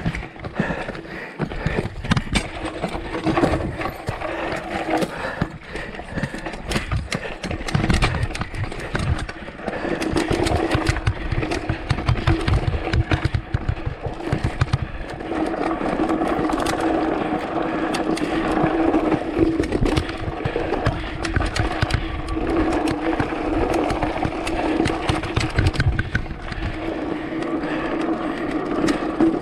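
Mountain bike running fast down a dirt trail: tyres rumbling over rough ground with frequent knocks and rattles from the bike on bumps. A steady mechanical buzz from the rear hub freewheeling while coasting grows stronger about halfway through.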